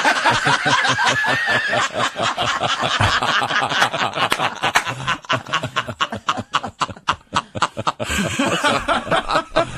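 People laughing hard in quick, breathy snickers and chuckles, easing off in the middle and picking up again near the end.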